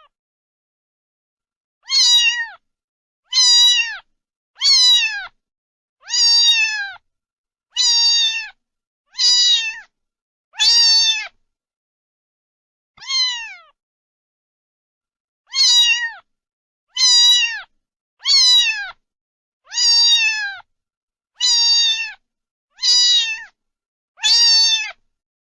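A cat meowing over and over, about fifteen high, short meows that each fall in pitch, with a pause of a couple of seconds midway.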